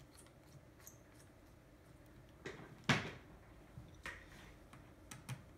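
A small screwdriver and fingers working at the screws and plastic of a laptop's screen panel, giving a few light clicks and taps. The sharpest comes about three seconds in.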